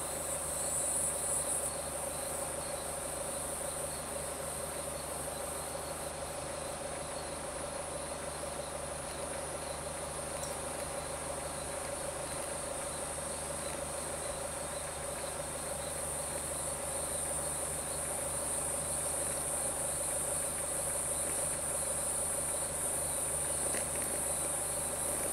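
Insects chirring in a steady high-pitched chorus over a steady low hum.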